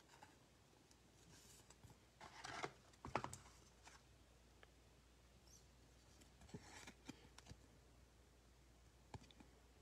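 Faint plastic rustling and a few soft clicks as a trading card is slid into a clear penny sleeve and then into a rigid plastic top loader. The sharpest click comes just over three seconds in.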